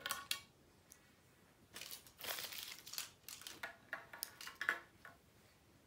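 Foil wrapper of a chocolate surprise egg crinkling as it is handled, in irregular short rustles with a few small clicks.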